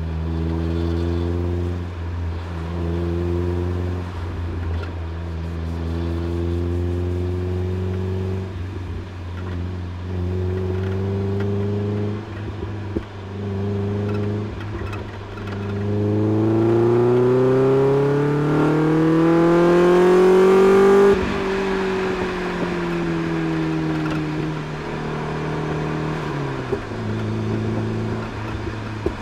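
Mazda MX-5 NB's 1.6-litre four-cylinder running through a Friedrich Motorsport Group A exhaust, heard from a rear-mounted microphone. It cruises at light throttle with short rises in pitch, then pulls hard, the note climbing steadily for about five seconds. The level drops sharply just past the middle, the pitch falls as the car slows, and it settles back into a steady cruise.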